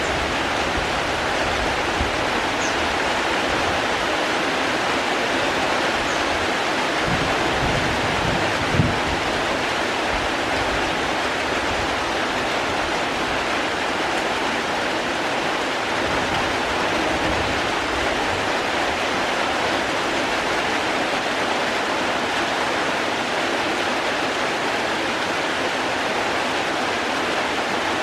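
Steady, even rush of falling water, a dense hiss without distinct drops. A brief low thump comes about a third of the way in.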